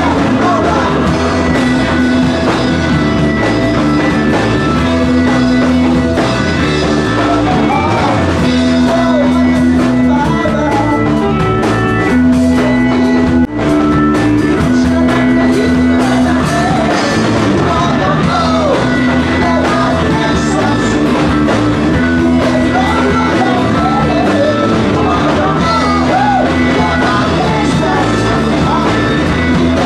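Live rock band playing loudly: electric guitar and drum kit with a male singer's vocals. The music drops out for an instant about halfway through.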